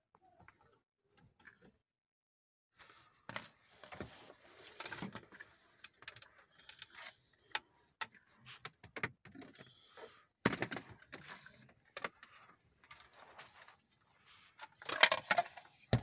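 Scattered plastic clicks, knocks and rustling from handling a handheld car vacuum cleaner's parts and power cord, with a sharp knock a little past halfway and the loudest rustling shortly before the end. The vacuum's motor is not running.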